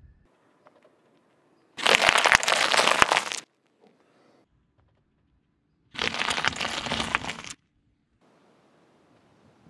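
A car tyre rolling over and crushing piles of green grapes and snap pea pods on asphalt. There are two loud bursts of crunching and cracking, each about a second and a half long, with near silence between them.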